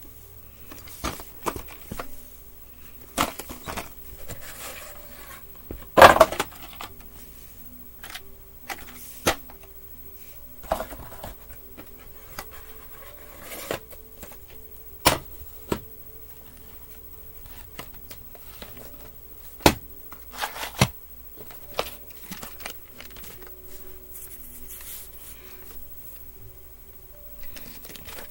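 Plastic VHS tape cases being handled, shifted and set down on a wooden floor: scattered clicks and knocks at irregular intervals, the loudest about six seconds in.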